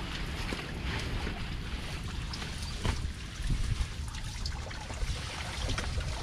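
Wind buffeting the microphone as a low rumble, with small splashes and trickles of water as hands work in the water at the net.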